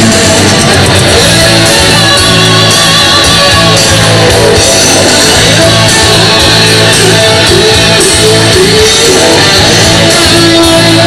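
Loud live rock music from a full band, with distorted electric guitar to the fore and sustained notes bending in pitch.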